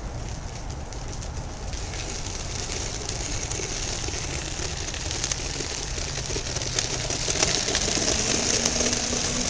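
Steady rumble and hiss of a homemade gyro-balanced one-wheel skateboard's go-kart wheel rolling over asphalt. The hiss grows louder through the second half, with a few sharp clicks.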